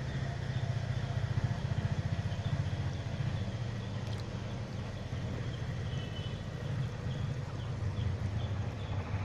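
A motor running steadily with a low, fast throb.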